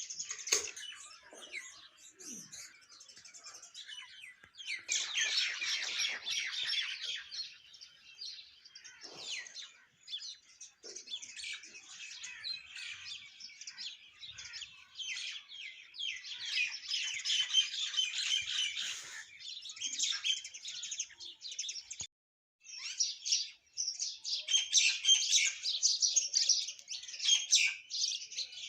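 A flock of mynas and sparrows chirping and chattering, many calls overlapping in dense bursts that swell and fade. There is a short break about three-quarters of the way through.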